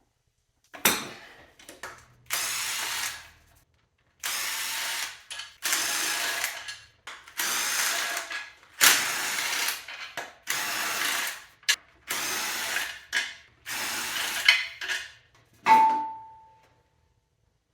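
Handheld power tool, likely a power ratchet, running in about ten short bursts of even level, unscrewing the bolts that hold the transmission's bell housing. Near the end a single metal clink with a brief ring.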